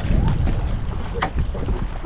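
Wind rumbling on the microphone, with a single short, sharp click a little over a second in.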